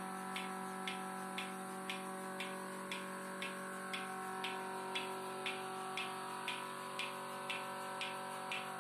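Single-bucket milking machine running: its 1.5 HP vacuum pump motor hums steadily while the pulsator ticks evenly about twice a second.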